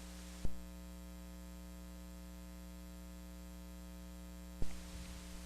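Steady electrical mains hum with faint hiss. Two short clicks break it, one about half a second in and one near the end.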